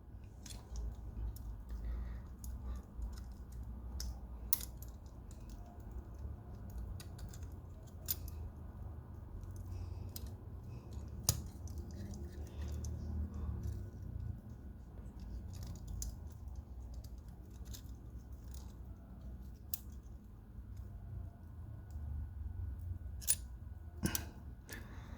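Multitool parts being handled and fitted onto the pivot bolt: scattered light metal clicks and taps at irregular intervals, over low handling noise.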